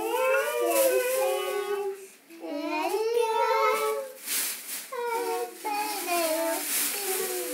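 A toddler girl's high voice singing without clear words, in long held and sliding notes, with a short break about two seconds in.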